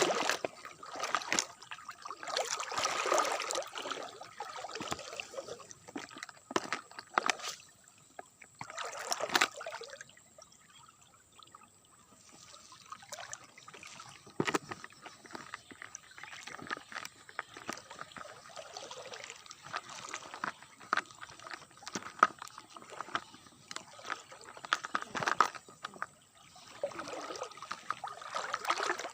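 Water splashing and sloshing in irregular swells, with many short sharp clicks and knocks scattered through it.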